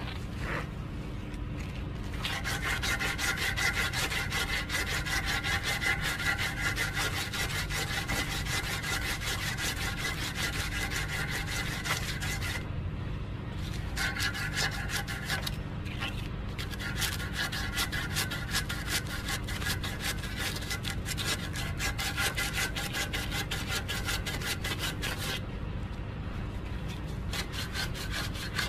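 Sandpaper rubbed back and forth by hand over a stainless steel rod clamped in a vise, in fast scratchy strokes, smoothing the filed barbs of a fishing-slingshot arrow point. The sanding starts about two seconds in, pauses briefly about halfway and eases off near the end.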